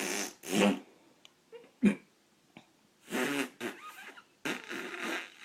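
Raspberries blown with the lips: several short buzzing, fart-like bursts with gaps between them.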